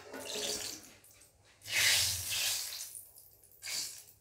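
Cooking oil dripping and splashing in a wok, with a louder stretch of about a second near the middle.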